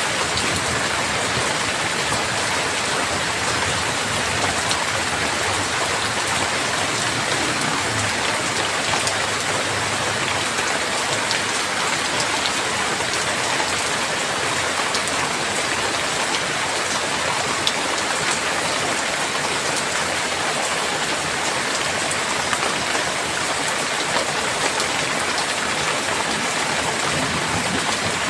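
Steady heavy rain falling on a surface, a dense even hiss with many small drop splashes and no thunder.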